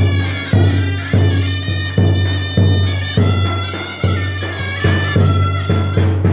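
Rumelian folk dance music: a reedy wind instrument plays the melody over a steady drum beat of about two strong beats a second.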